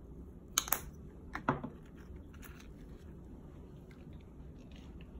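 A few short sharp clicks and knocks of a glass hot sauce bottle and the plate being handled and set down, in two pairs about half a second and a second and a half in, over a low steady hum.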